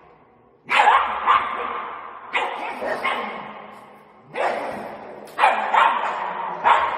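Small dog barking at a closed door, about eight sharp barks in pairs and threes, each with an echoing tail.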